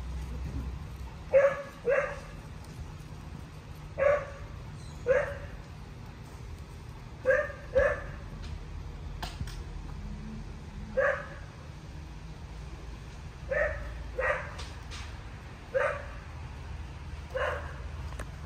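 A dog barking: short, sharp barks, often two in quick succession, repeating every second or two, about a dozen in all.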